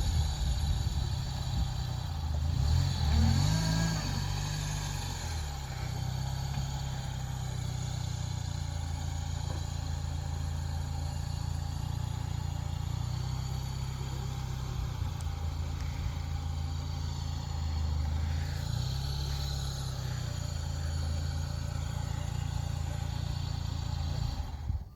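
A motor vehicle's engine running steadily, its pitch rising briefly about three seconds in as it revs, then settling.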